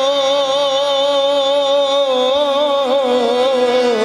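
A male singer holding one long note with a slow, even vibrato in a devotional bhajan. About two seconds in he breaks it into quick ornamental turns, then slides down near the end.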